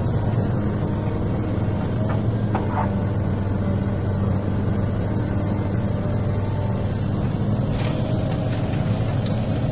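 XCMG excavator's diesel engine running steadily at working revs, with a few faint knocks about two seconds in and again near the end.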